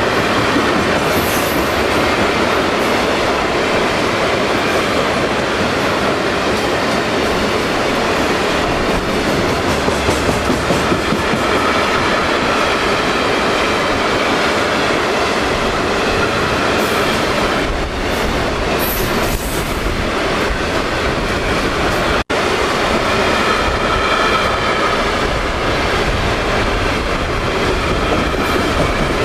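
Long train of loaded taconite ore cars rolling past close by: a steady rumble and rattle of steel wheels on rail, with a few short high wheel squeals.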